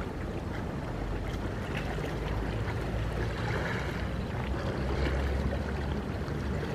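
Small waves lapping and splashing against the rocks of a jetty, over a low steady rumble that grows stronger about five seconds in.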